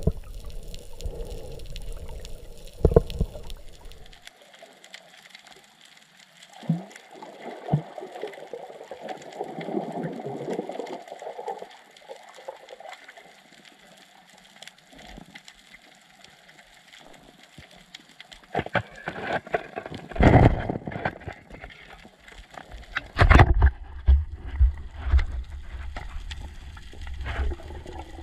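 Water gurgling and sloshing against the microphone, with a cluster of louder splashes and knocks about two-thirds of the way through.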